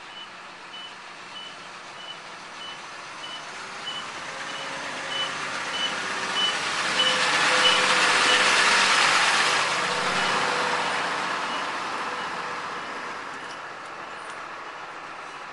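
Box delivery truck reversing, its backup alarm beeping steadily at a little under two beeps a second. Its engine and tyre noise grow louder as it passes close, loudest about eight seconds in, then fade as it backs away.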